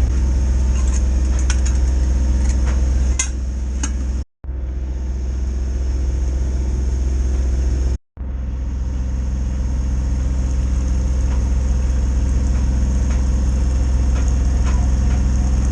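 Sailboat's inboard auxiliary engine running steadily while motoring, a constant low hum. The sound drops out briefly twice, about four and eight seconds in.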